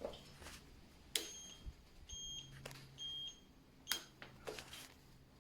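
Electric scooter turn-signal indicator beeping: short high-pitched beeps about once a second, with several sharp clicks among them.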